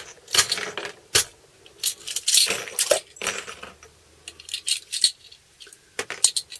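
Loose metal pop rivets clinking and rattling as they are picked through by hand, in clusters of sharp clicks.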